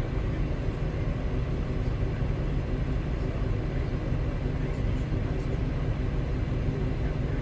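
Large farm tractor's diesel engine running steadily, a constant low drone heard from inside the cab.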